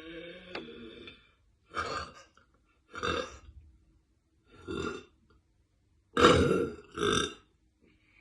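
A woman burping repeatedly: a long, pitched burp that ends about a second in, then five short burps, the loudest two close together near the end.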